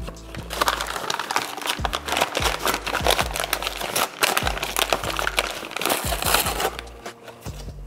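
A paper bag of granulated sugar being crumpled and rolled shut by hand, a dense crinkling crackle that dies away near the end. Background music with a low bass line runs underneath.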